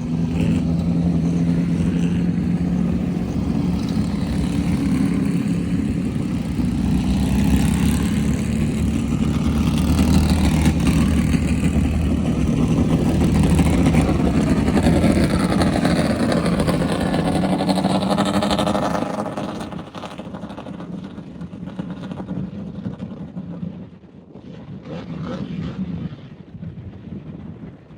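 Off-road race vehicle's engine running hard at speed, its pitch shifting as it goes. About two-thirds of the way through the sound drops away and turns weaker and patchier.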